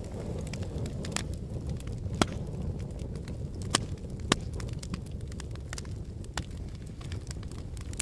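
Burning wood fire crackling, many small irregular snaps over a low steady rumble of flames, with a few sharper pops about two seconds in and twice around the middle.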